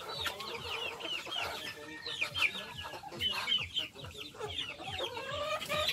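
A flock of chickens feeding, with many short, high clucks and peeps overlapping one another.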